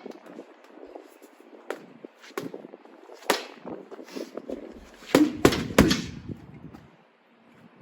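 Gloved punches landing on a punching bag: single shots about a second apart, then a quick, louder three-punch combination about five seconds in.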